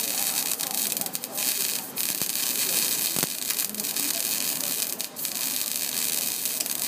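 Electric welding arc on steel giving a steady crackling hiss, dropping out briefly a few times as the arc breaks.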